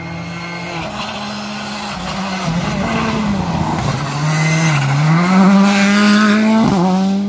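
Škoda Fabia R5 rally car's turbocharged four-cylinder engine coming into a hairpin: its pitch dips about four to five seconds in as it brakes and downshifts, then climbs, loudest as it accelerates away, with a quick upshift near the end.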